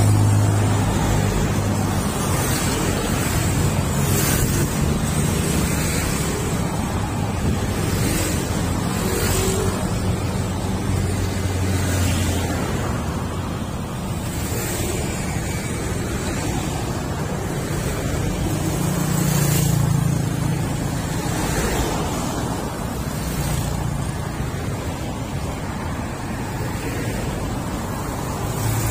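Outdoor road traffic: a steady rush of cars passing, with low engine hum swelling and fading several times, mixed with wind noise on the microphone.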